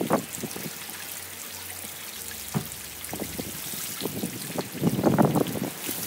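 Rain falling on a wet surface: a steady hiss with scattered drops striking, a sharp one right at the start and more, louder ones crowding in near the end.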